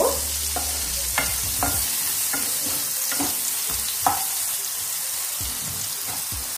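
Cubed eggplant frying in mustard oil, sizzling steadily, while a wooden spatula stirs it, scraping and knocking against the pan every second or so.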